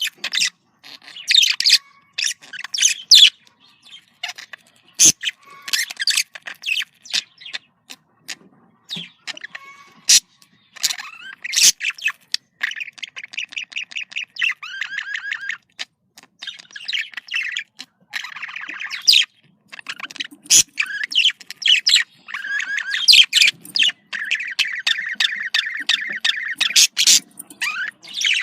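Budgerigars chattering and warbling, with quick chirps, sharp calls and long runs of fast, buzzy trilling.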